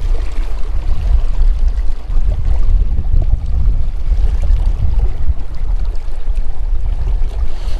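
Fast-flowing river water rushing steadily, heard as an even noisy rush with a heavy low rumble.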